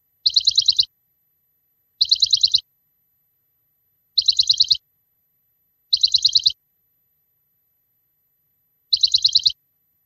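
Bird-like chirping trill: five short bursts of about eight quick high chirps each, every burst about half a second long and all alike, with dead silence between them.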